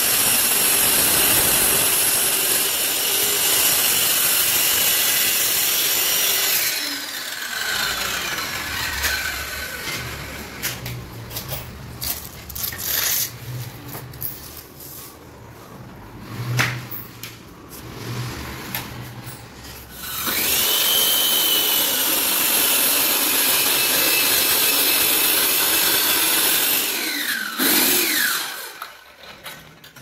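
Handheld circular saw cutting through a WPC (wood-plastic composite) door board, then winding down with a falling whine about seven seconds in. Knocks and handling noises follow. About twenty seconds in the saw starts again with a high whine, makes a second cut of about seven seconds, and winds down again.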